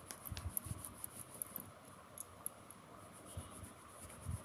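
Faint scratching of a colored pencil on paper as it is stroked back and forth to shade a drawing, with a few soft low bumps.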